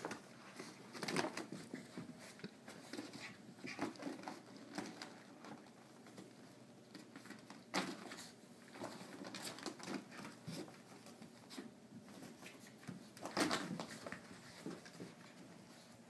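Two small dogs play-fighting on carpet: irregular scuffling and tussling with a few dog vocal sounds, and sharp louder noises about a second in, midway and near the end.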